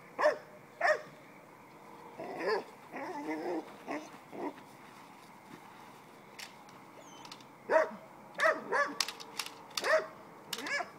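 Dog barking in clusters of a few barks during protection bitework, with several sharp cracks near the end from the helper's clatter stick.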